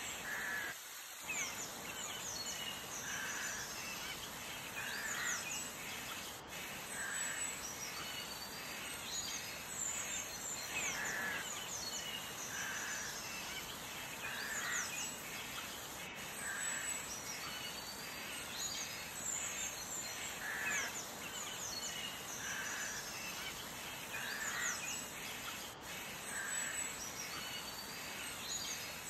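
Birds chirping and calling over a steady background hiss, with quick high chirps and a lower call every second or two.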